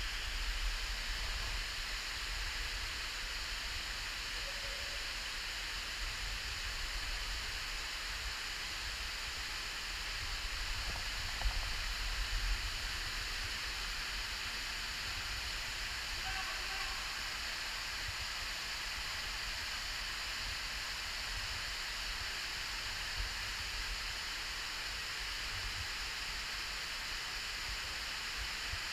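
Steady rushing of a waterfall cascading over a rock lip into a pool in a narrow rock canyon.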